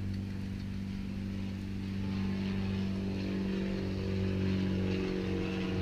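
Steady machine drone from a running motor: a low hum with evenly spaced overtones, growing slightly louder about two seconds in.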